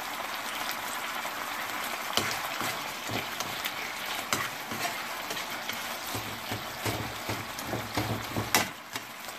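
Sauce-coated peppers and onions sizzling in a non-stick frying pan as a spatula stirs them, with a few sharp scrapes and knocks of the spatula against the pan.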